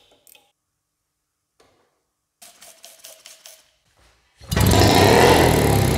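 British Seagull two-stroke outboard motor being pull-started: a few light clicks and rattles, then about four and a half seconds in the engine catches and runs loud and rough. This is the first start of a long-idle engine whose ignition points have just been cleaned.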